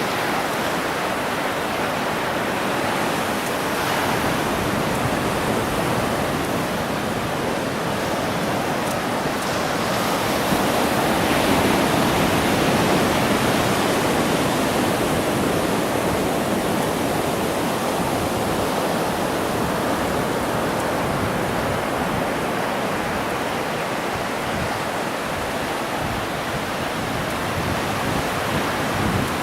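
Steady wash of ocean surf breaking on the beach, swelling a little louder about eleven seconds in.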